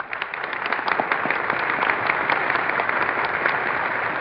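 Dinner audience in a hotel ballroom applauding, a dense spatter of clapping that swells over the first second and then holds steady. It comes through an old AM radio broadcast recording with the top end cut off.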